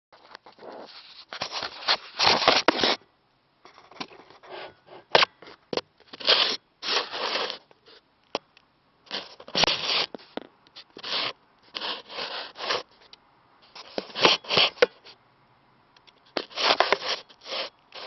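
Irregular scraping and rubbing noises in short bursts, each lasting up to about a second, with brief pauses between them.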